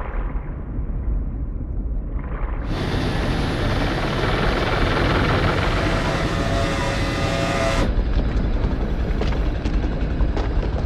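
Steady low engine rumble. From about three seconds in, a loud rushing hiss joins it and cuts off suddenly near eight seconds, followed by a few faint clicks.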